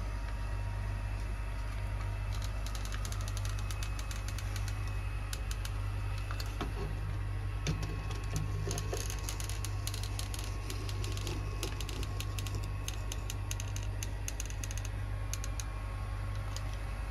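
Caulking gun dispensing sealant: a long run of quick, irregular dry clicks as the trigger is worked, starting about two seconds in and stopping shortly before the end. A steady low hum lies underneath throughout.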